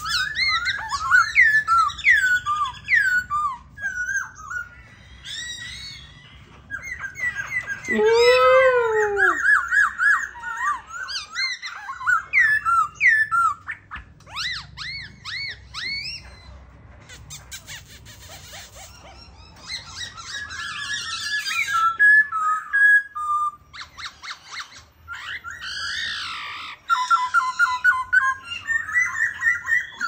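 Caged black-throated laughingthrush singing a long, varied song of clear whistled phrases with rising and falling notes. A fast run of repeated notes comes near the end.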